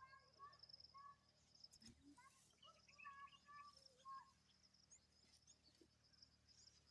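Faint birdsong: a string of short whistled chirps and slurred notes for the first four seconds or so, over a steady high insect trill.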